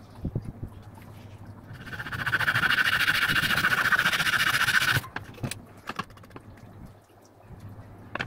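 A wide steel blade scraped hard and fast over wood for about three seconds, a loud rasping scrape that stops abruptly. Light knocks and clicks of handling come before and after.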